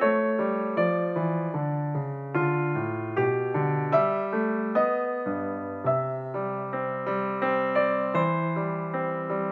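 Background music: a slow, sad piano minuet, its notes struck at an even pace about every 0.8 s and left to fade.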